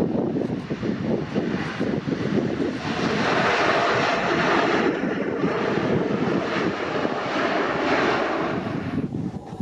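Jet airliner's engines heard as it passes, a steady rushing noise that swells about three seconds in and falls away near the end.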